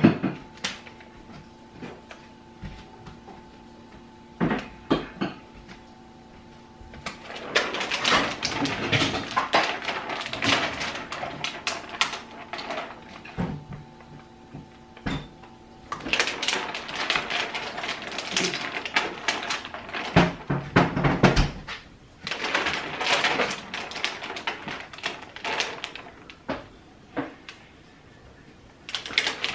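Rustling and crinkling of a plastic sheet of window clings as the clings are peeled off their backing and pressed onto window glass, in several stretches with small clicks and taps. A faint steady hum sounds underneath until about halfway through.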